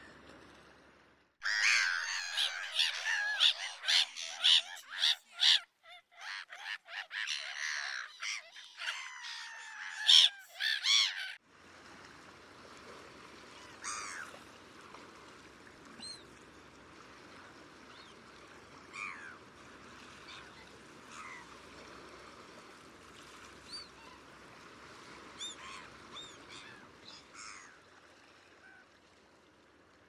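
Black-headed gulls calling: a dense flock chorus of harsh calls for about ten seconds, then scattered single calls over a steady background hiss.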